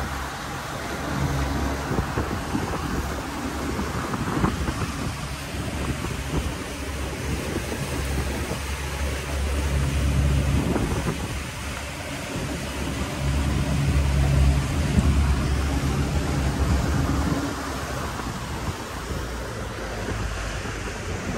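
Boat motor running as the boat cruises, its low hum swelling and fading, with wind on the microphone and water rushing past the hull.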